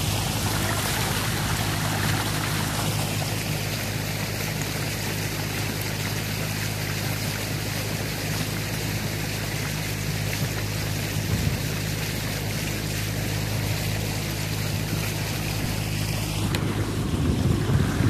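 Outboard motor of a small open boat running steadily under way, with water rushing along the hull and wind buffeting the microphone.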